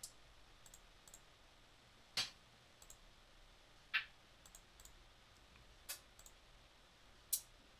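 Quiet hi-hat one-shot samples previewed one after another: four short, crisp ticks about two seconds apart, each a slightly different tone, with fainter computer key clicks in between.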